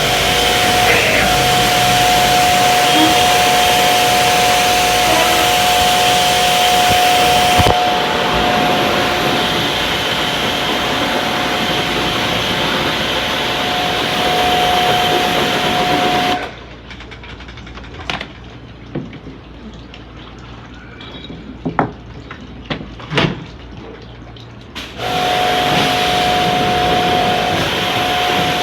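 Pressure washer running, its water jet spraying onto a window air conditioner to clean it, with a steady whine from the machine. It stops about 16 seconds in, leaving a few clicks and knocks, and starts again near the end.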